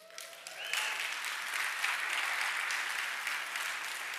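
Audience applauding, swelling within about the first second and then holding steady.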